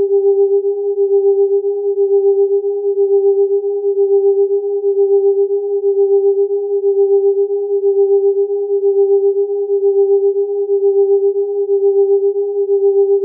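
Electronic sine tones close in pitch sounding together so that they beat against each other. A steady low tone with a fainter tone about an octave above pulses rapidly in loudness, the pulses grouped into swells about once a second.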